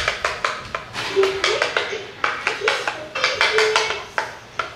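A utensil scraping and knocking red velvet waffle batter out of a plastic mixing bowl onto a waffle iron: a quick, uneven run of scrapes and taps, several a second.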